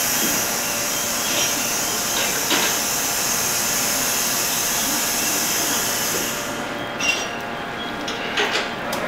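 JR 285 series electric sleeper train standing at the platform: a steady high hiss over the hum of its onboard equipment. The hiss cuts off suddenly about two-thirds of the way through, and a few sharp knocks follow near the end.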